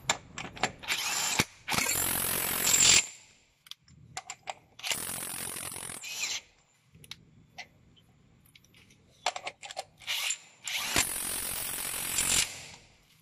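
Keyang cordless impact wrench hammering on 41 mm truck wheel nuts, breaking them loose and spinning them off. It comes in three main bursts of a second or more, about two, five and eleven seconds in, with a shorter burst before the first and light clicks of the socket being fitted between them.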